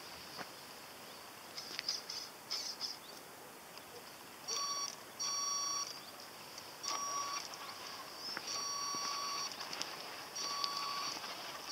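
Radio-controlled monster truck's electric motor whining as it is driven slowly along in short stop-start bursts of throttle. Each burst is a steady high tone lasting under a second, and they start about four seconds in and repeat about six times over a thin high hiss from the drivetrain.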